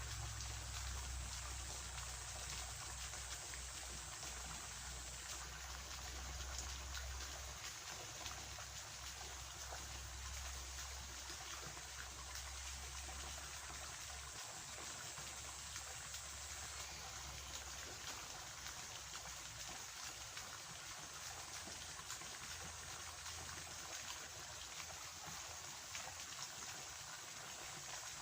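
Steady trickle of water flowing in a small ditch, with a low rumble that fades out partway through.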